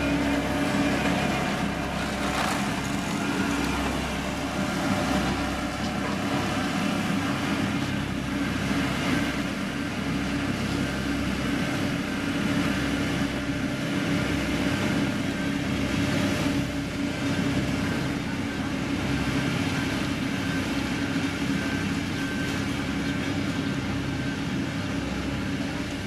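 Diesel engine of a heavy road-building machine running steadily, a constant drone with no marked change in speed.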